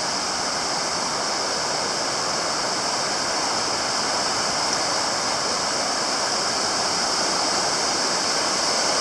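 Steady rushing of a waterfall, an even wash of falling water that grows slightly louder near the end.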